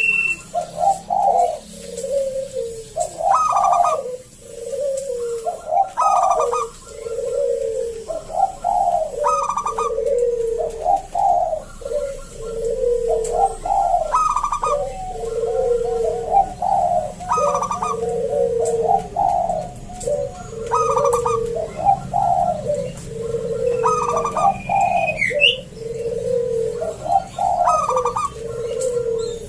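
Zebra dove (perkutut) cooing continuously, with a steady run of repeated coo phrases about one every second or two. Its voice is thick and big, the deep, full voice prized in a gacor songbird.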